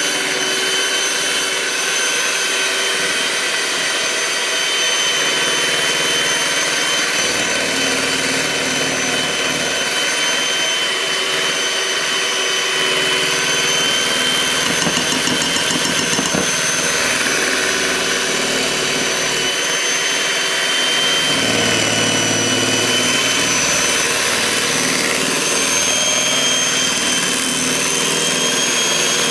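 Electric kitchen appliance motor, such as a mixer, running steadily with a high whine over a hiss. Its pitch shifts slightly a few times, and a little past the middle a lower rumble joins it for a few seconds.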